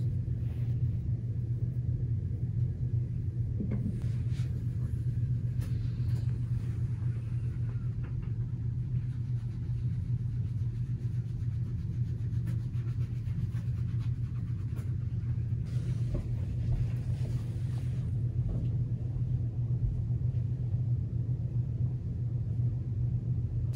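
Steady low rumbling hum, unchanging throughout, with a few faint rustles now and then.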